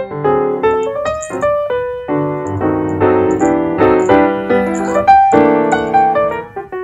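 Piano music: a flowing run of struck notes over chords, each note sounding and fading as the next begins.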